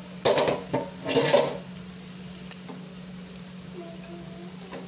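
Steel plate lid clanking and scraping against a dough-sealed biryani pot as it is taken off, two short clatters in the first second and a half: the dum seal being broken open.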